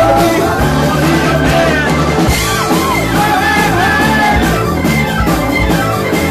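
Live rock band playing loud, with electric guitar, bass guitar and drums, and a singer's voice over it.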